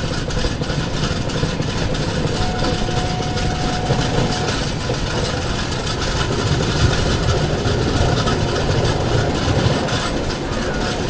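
Vaishali Superfast Express passenger train running at speed, heard from a coach doorway: a steady rumble and clatter of wheels on the track with rushing wind. A faint, thin steady tone comes in for about two seconds a couple of seconds in.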